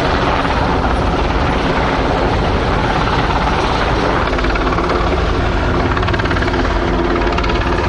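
Government Flying Service rescue helicopter overhead, its rotor and engine making a loud, steady noise.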